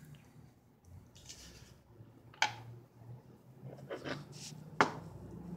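Small objects being handled: two sharp clicks about two and a half seconds apart, with a few short rustles between them.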